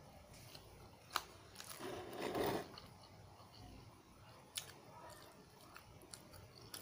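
Close mouth sounds of a person eating pancit canton (fried instant noodles): slurping noodles in, with the loudest slurp about two seconds in, then chewing with small wet clicks.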